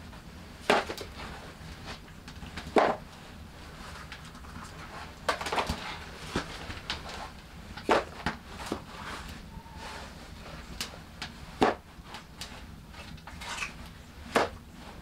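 Split firewood logs being stacked by hand, wood clunking against wood in sharp, irregular knocks every second or two.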